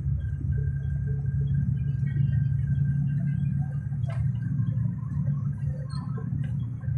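Steady low rumble of engine and road noise heard from inside a moving bus, with a single click about four seconds in.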